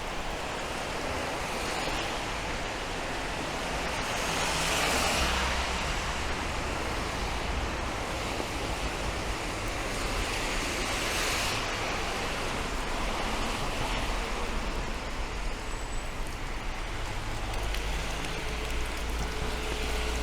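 Rain on a city street with the hiss of car tyres on wet road; two vehicles swish past, the louder swells about five and eleven seconds in, and a low engine rumble builds near the end.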